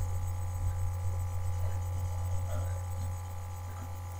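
Steady low electrical hum, with a few faint, brief small noises over it.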